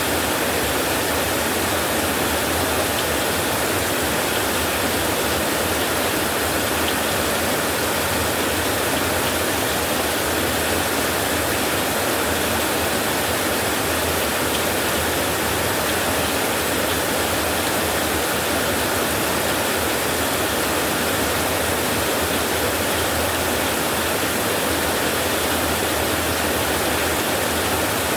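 Steady heavy rain falling on a tin roof, an even, unbroken wash of noise.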